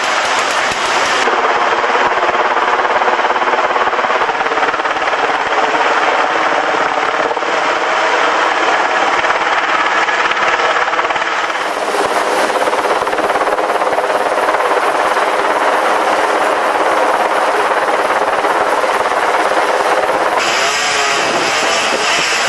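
Aérospatiale AS 332 C1 Super Puma helicopter hovering close overhead: loud, steady turbine and rotor noise. The sound changes abruptly about a second in, about halfway, and near the end.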